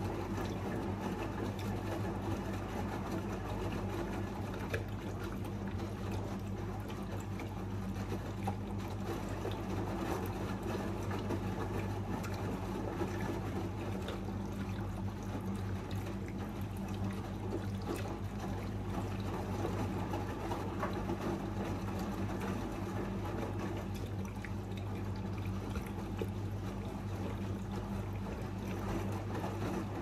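AEG Lavamat 76850 front-loading washing machine filling: a stream of water pours into the turning drum and onto the tumbling wet laundry, with a steady low hum underneath.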